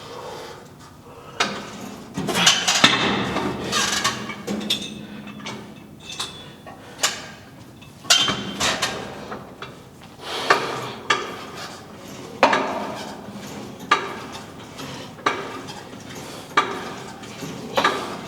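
Weight stack of a hip abduction machine clanking, first irregularly, then with a sharp clank about every second and a half as the plates touch down on each rep.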